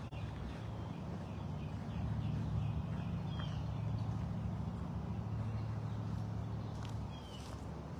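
A steady low hum with a few faint bird chirps over it.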